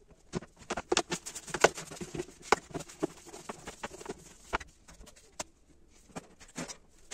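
Parrot cage clicking and knocking: many irregular light taps and clacks, thick for the first few seconds, then thinning out to a few scattered ones.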